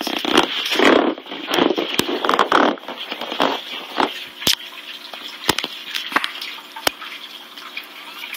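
Rustling and handling noise of a phone being moved through blankets, loud through the first three seconds, then quieter with scattered sharp clicks.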